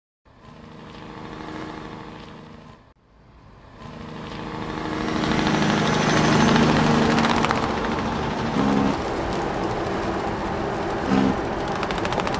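An engine running steadily: faint at first, then after a short break louder again. It builds over a couple of seconds and holds with a fast rattle on top.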